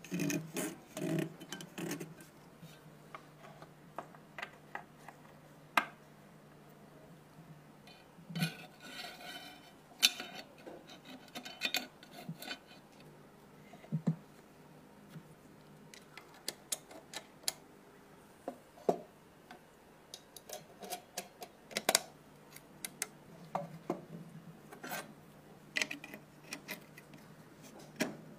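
Metal parts of an airsoft gun clicking, knocking and scraping as they are handled and fitted together by hand during reassembly, with a spring on its guide rod and receiver parts being worked. The clicks come every few seconds, with a rasping scrape about a third of the way in, over a faint steady low hum.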